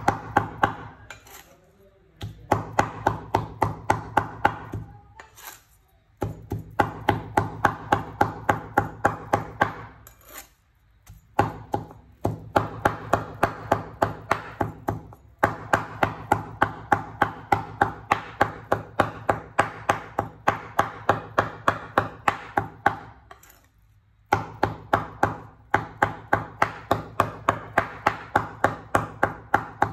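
Cleaver chopping raw meat into mince on a wooden cutting board. The chops come in fast, even runs of about four a second, broken by short pauses every few seconds.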